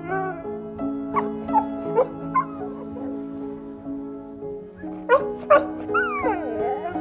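Dachshund giving short yips and barks, four in the first half and two about five seconds in, followed by a drawn-out falling whine, over background music.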